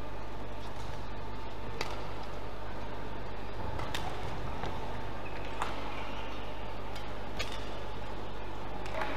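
Badminton rally: racket strings striking the shuttlecock four times, about two seconds apart, over a steady hall hum.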